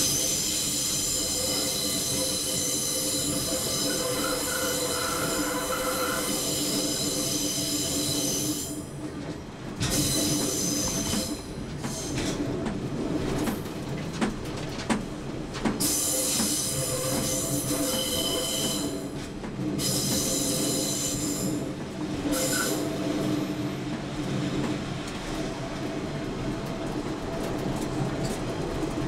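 Class 101 diesel multiple unit running along the line with its wheels squealing on the rails: a high, many-toned squeal for the first eight seconds or so, fading out, then coming back for a few seconds past the middle. Underneath is the steady rumble of the moving train.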